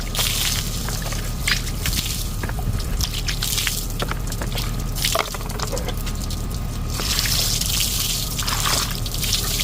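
Baby clothes being washed by hand in a sink of water: wet fabric squished and sloshed in repeated surges, with drips and trickles between them, over a steady low rumble.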